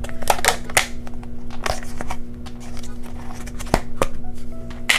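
Rubber bands being pulled off and a small plastic container's snap-on lid being handled and opened: a string of sharp clicks, snaps and rustles, the loudest near the end.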